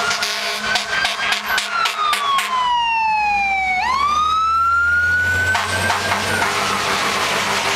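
Fire engine passing close by with its siren wailing. The pitch falls slowly, winds back up sharply about four seconds in, then eases down again, over the low rumble of the truck's engine. There are a few sharp knocks in the first couple of seconds.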